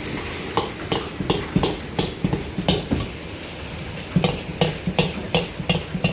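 Lamb and onion being stirred and tossed in a kazan: a cooking utensil knocks and scrapes against the pot about three times a second over a steady sizzle, as the seasoning is mixed in.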